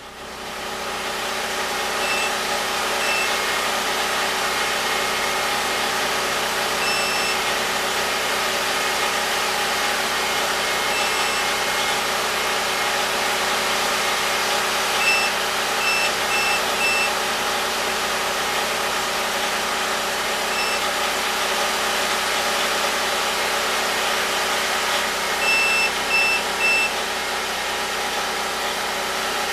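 A motor or engine running steadily, swelling up over about the first second. Short high electronic beeps sound now and then, singly and in quick runs of two to four.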